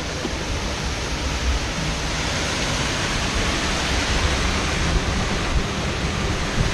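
Steady rushing water: a man-made waterfall pouring down right beside a round river-rapids raft, with the rapids churning around the boat.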